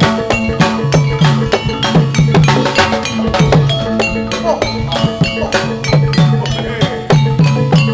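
Live Javanese gamelan accompaniment for a jathilan dance, played through a sound system: a fast, steady beat of drum and struck-metal percussion over sustained gong-like tones.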